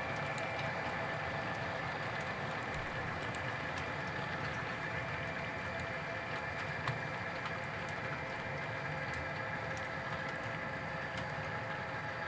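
Model freight train rolling past: a steady hum and rumble of the cars' wheels on the track, with scattered light clicks and one sharper click about seven seconds in.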